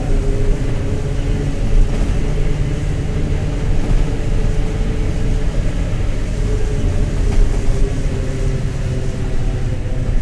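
Mercedes-Benz OF-1721 BlueTec 5 bus's four-cylinder diesel running, a steady low rumble with a droning tone above it that drifts slightly in pitch. The drone is a bearing, a sign of wear.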